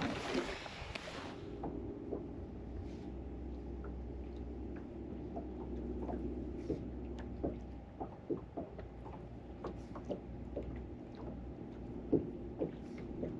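A brief splash as a released bass slips back into the water, then the steady hum of a bass boat's bow-mounted electric trolling motor, which stops near the end, with scattered light clicks.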